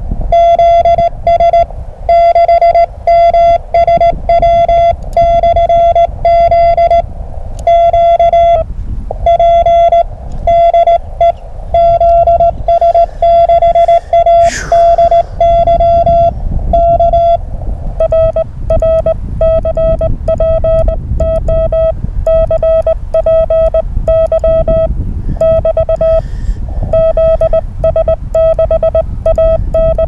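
Morse code (CW) tone from a ham radio transceiver: a steady mid-pitched beep keyed on and off in dots and dashes over a low hiss. A brief falling whistle comes about halfway through, and the keying pattern changes about two-thirds through.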